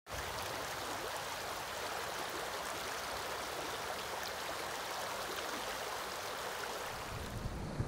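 River water rushing steadily over stones in a shallow riffle.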